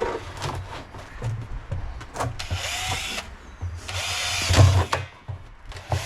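Power drill boring drain holes in a storage container: two short runs of about a second each, the motor spinning up and winding down, with knocks of handling between them.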